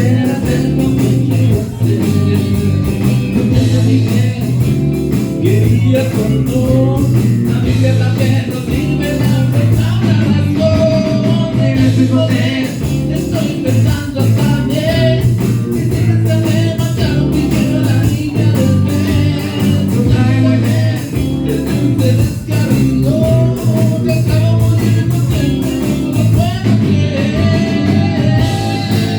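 A band playing blues-rock music, led by guitar, with singing.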